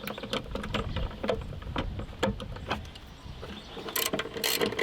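10mm socket ratchet clicking as it backs off retaining nuts: scattered clicks at first, then a faster run of clicks from about four seconds in.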